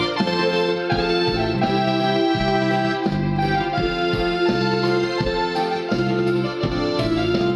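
Yamaha PSR-E463 arranger keyboard playing a march style: a melody over sustained chords, with the auto-accompaniment's bass notes falling on a steady beat.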